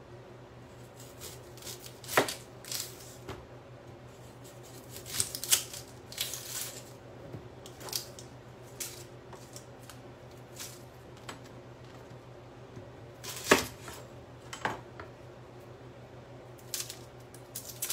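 Kitchen knife slicing and dicing a yellow onion on a cutting board: irregular knocks of the blade against the board, a few much louder than the rest, over a steady low hum.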